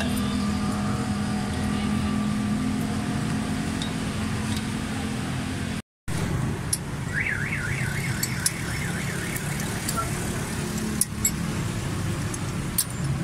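Workshop noise: a steady low mechanical hum with a few sharp metallic clicks, cut off briefly about six seconds in. Soon after, an electronic alarm tone warbles up and down quickly, about four swings a second, for roughly two seconds.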